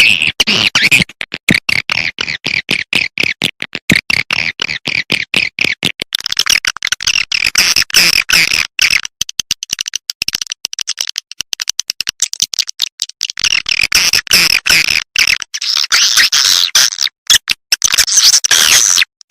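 Recorded swiftlet calls played as a lure: a dense, rapid chattering of clicks and high twitters, shifting to higher twittering from about six seconds in.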